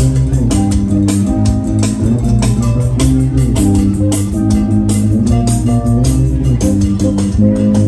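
Background music: plucked guitar and bass over a steady beat.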